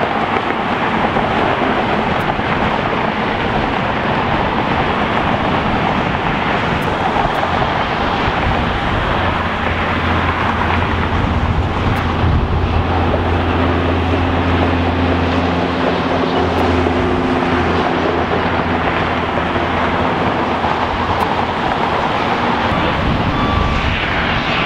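Jet airliner engines running: a steady loud rush, with a low droning hum through the middle stretch.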